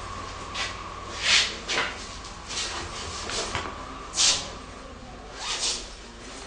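Cloth and bedding rustling as it is handled and pushed aside, in a string of short swishes, the loudest about one and a half seconds and four seconds in.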